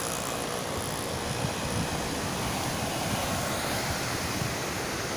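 Sea waves washing against the shore: a steady rushing noise with no clear breaks.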